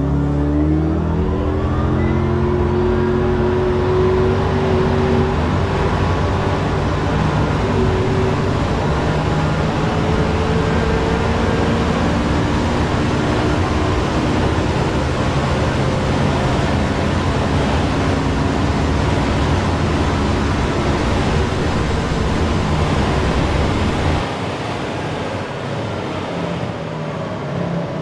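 A hypercar accelerating flat out from a standstill towards 400 km/h: a drive note that climbs in pitch over the first several seconds, buried in heavy wind and tyre noise at very high speed. It eases off and gets quieter about 24 seconds in.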